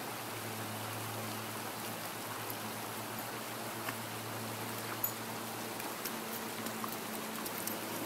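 Shallow creek water running over a rocky bed: a steady rush of water, with a couple of faint ticks about four and five seconds in.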